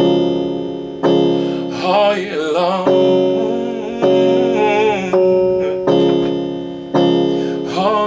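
Electronic keyboard playing chords, each struck and fading, about one a second. A man's voice sings short wavering runs over them about two seconds in, again around four and a half seconds, and near the end.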